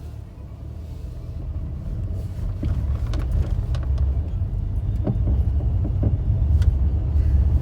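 A car driving on a bumpy road, heard from inside: a low rumble of engine and tyres that grows louder as the car picks up speed, with a few sharp knocks and rattles from the bumps.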